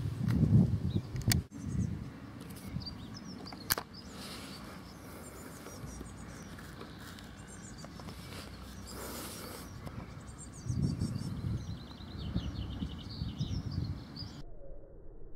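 Open-field ambience: birds chirping over a steady outdoor hiss, with low rumbles near the start and again later, and three sharp clicks in the first four seconds. It cuts off suddenly shortly before the end.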